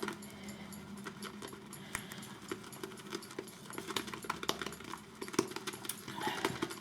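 Badger-hair shaving brush whipping wet shaving-soap lather in a bowl: rapid, irregular clicking and squishing that grows a little busier in the second half.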